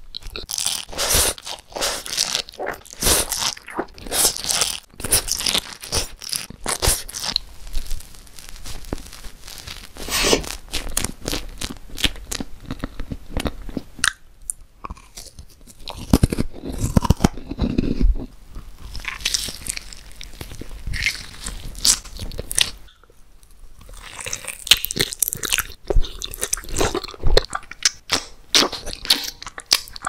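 Close-miked eating sounds of sweets and desserts: sharp bites and crunching followed by moist chewing, in a run of irregular strokes with a couple of brief pauses.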